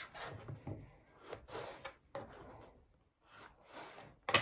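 Kitchen knife cutting through a raw bottle gourd on a plastic cutting board: a series of short crunchy slicing strokes. A sharp clack near the end is the loudest sound.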